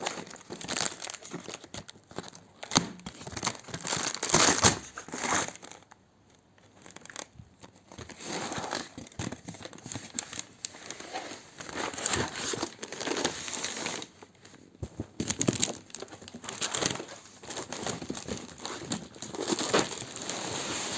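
Packing tape being peeled and torn off a graphics card's retail box, with the cardboard and plastic packaging crinkling and rustling in irregular bursts. There are brief lulls about six seconds in and again around fourteen seconds.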